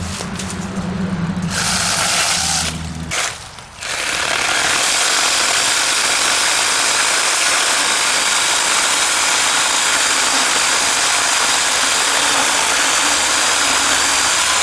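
Kimo 6-inch cordless mini chainsaw cutting through wood. It runs briefly, pauses for a moment, then from about four seconds in runs on steadily with a high whine.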